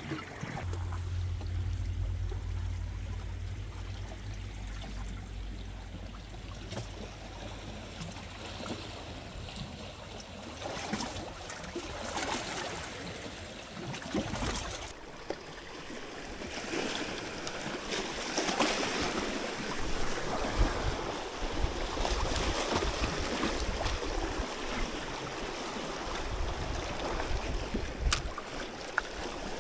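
Seawater washing and sloshing, with waves breaking unevenly. A low steady hum runs under it for about the first half, then stops.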